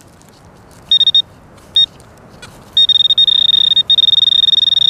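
Handheld metal-detector pinpointer probing a dig hole: two or three short high beeps, then, from about three seconds in, a continuous high buzzing tone as it closes on a metal target in the soil.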